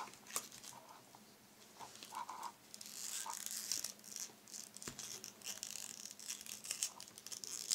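Faint handling noise of small plastic toy parts and packaging: rustling, crinkling and scattered small clicks as fingers work at them, busier from about three seconds in.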